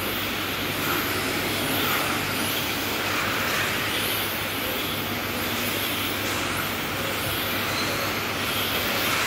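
Radio-controlled race cars lapping a track, their motors giving high-pitched whines that rise and fall again and again as cars accelerate, brake and pass, over a steady running hiss.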